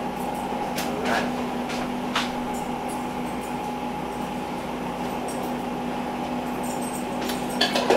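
Covered pot of steak simmering on a glass-top electric stove: soft bubbling under the lid over a steady hum, with a few faint ticks in the first couple of seconds.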